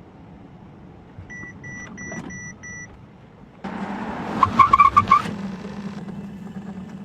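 Machinery running with a steady low hum; an electronic warning beeper sounds five short beeps, then a louder stretch of mechanical noise carries a quick run of sharp high chirps.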